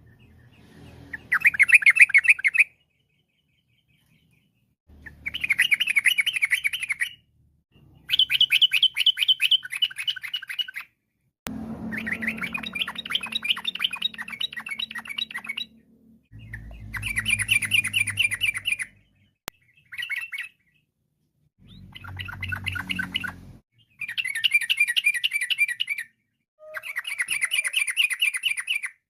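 Yellow-vented bulbul (trucuk) singing: about nine quick, bubbling chattering phrases, each one to three seconds long, with short pauses between. A low rumble sits under some of the phrases.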